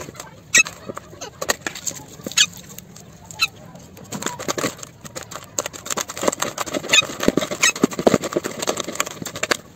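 Hands mashing hard-boiled eggs with their shells into a moist mix of chopped vegetables and pulses in a plastic bowl: irregular crackling of crushed eggshell and squelching, with small squeaky clicks.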